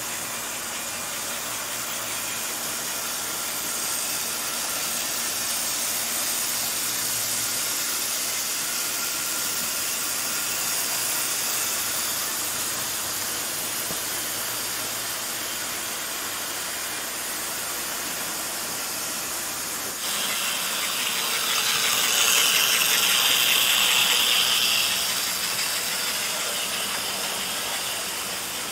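Gilbert American Flyer HO model locomotives running on the layout with freight cars in tow: a steady whirring hiss of their small electric motors and the wheels on the track. It grows louder for a few seconds about two-thirds of the way in.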